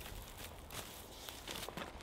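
Footsteps crunching and rustling in dry leaf litter and twigs: a run of irregular short crackles.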